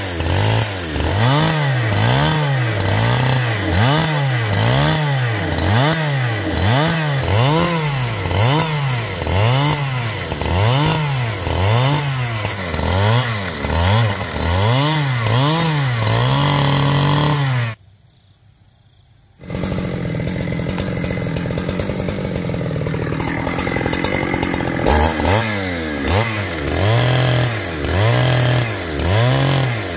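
Chainsaw engine running, its pitch rising and falling over and over about once a second. About two-thirds of the way through it drops away suddenly for a couple of seconds, then runs again, steady at first and swinging up and down again near the end.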